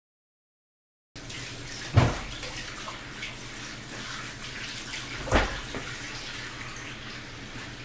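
After a second of silence, a bathroom sink tap runs with a steady hiss of water, broken by two sharp knocks about three and a half seconds apart, the first the loudest.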